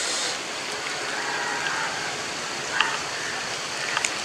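Steady rushing hiss of outdoor background noise, with a few faint clicks near the end.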